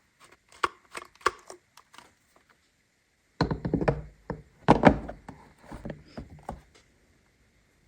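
Plastic toy playset pieces being handled, knocking and clicking against each other. A few light clicks come first, then a busier run of clattering knocks about halfway through.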